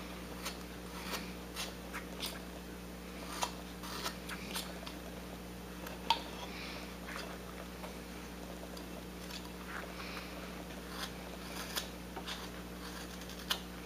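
Carving knife cutting into wood: irregular, faint clicks and short scraping strokes as thin shavings come off, over a steady low hum.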